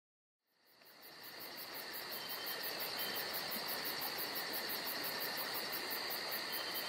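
Forest insect chorus: a steady, shrill drone with a fast pulsing chirp high above it, about four or five pulses a second, fading in about a second in.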